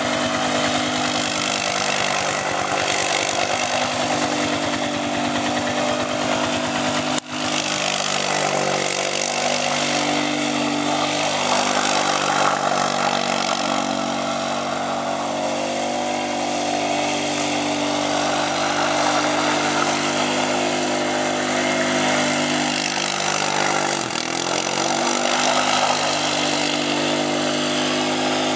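Polaris Scrambler 500 ATV's single-cylinder four-stroke engine held at high revs as the quad spins donuts through mud, its pitch wavering with the throttle. The sound cuts out for an instant about seven seconds in, and the revs sag and climb again near the end.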